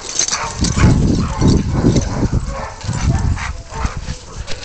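Siberian huskies vocalizing as they play, with yips and whines over heavy low rumbling noise.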